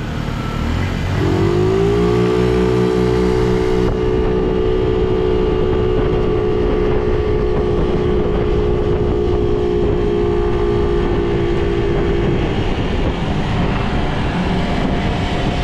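50cc moped engine revving up about a second in, then holding a steady high pitch while cruising. Near the end the engine tone drops away under a steady rush of wind and road noise.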